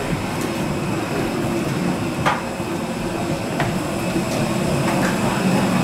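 Steady low mechanical drone inside an airport jet bridge, with a few faint clicks from people walking along it.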